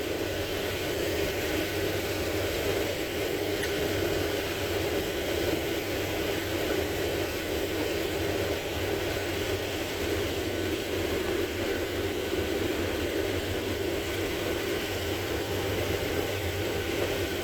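Combine harvester running steadily while harvesting corn: an even machine drone with a low hum underneath and no change in pitch or load.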